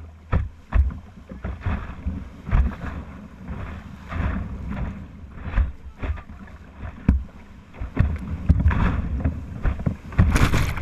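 Whitewater rapids rushing around an open canoe, with a deep rumble and irregular splashes and knocks as waves and paddle strokes hit the boat. A large splash comes near the end.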